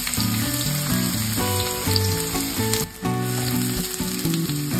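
Diced onions sizzling in hot cooking oil in a non-stick frying pan, a dense steady hiss as they start to fry, with a brief dip near the middle while they are spread with a spatula.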